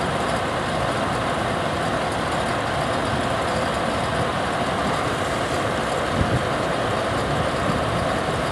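Belt-driven exhaust fan with a new quarter-horsepower electric motor running steadily and smoothly, an even, unbroken noise of motor and moving air.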